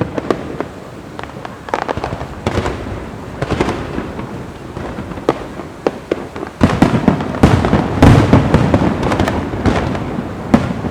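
Fireworks going off: a string of sharp bangs and crackles, becoming dense and loudest, with deep booms, from about two-thirds of the way in.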